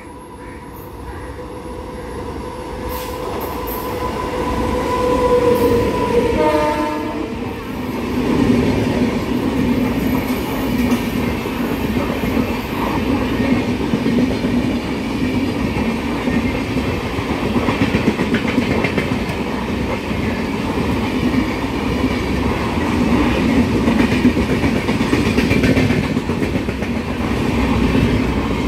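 WAP7 electric locomotive sounding its horn in one long blast that drops in pitch as it passes, about seven seconds in. Then the express's coaches run past at speed with a steady loud rumble and wheel clatter over the rail joints.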